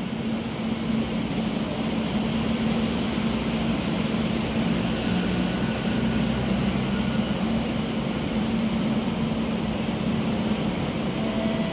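Steady mechanical hum with one constant low tone over an even wash of noise.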